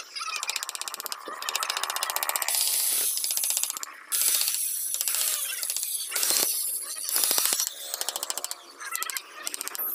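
Hand chisel cutting into hardwood, a fast crackling rattle of clicks broken by harsher scraping strokes as the blade is pushed through the grain.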